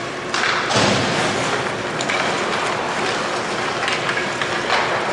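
Ice hockey play: skate blades scraping the ice in several hissing bursts, with short knocks of sticks and puck.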